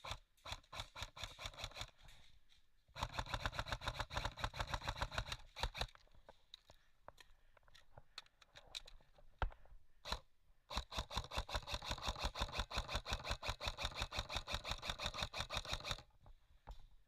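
Airsoft guns firing: scattered single shots, then two long full-auto bursts of rapid, even clicking at about a dozen shots a second. The first burst starts about three seconds in and the second, longer one about eleven seconds in.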